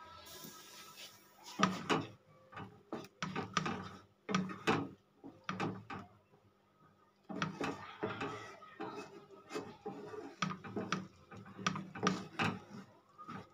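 A spatula stirring grape chutney in a non-stick frying pan: irregular knocks and scrapes against the pan. There is a short pause about six seconds in.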